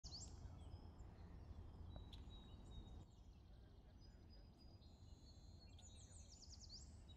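Quiet outdoor ambience: a low steady rumble with faint bird calls. There is a rising whistle at the start, a thin held note about two seconds in, and a quick run of short chirps near the end that closes with another rising whistle.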